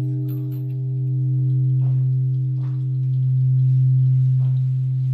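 Large Japanese temple bell (bonshō) humming on after a strike: a deep steady tone that swells and fades in slow beats about every two seconds, while its higher overtones die away.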